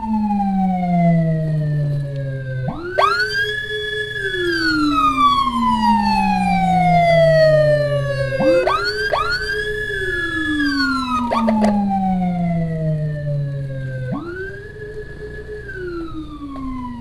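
Electronic emergency sirens wailing in slow cycles: each tone climbs quickly, holds briefly, then slides down over several seconds, repeating about every six seconds. Two sirens sound slightly out of step, over steady motorcycle and road noise.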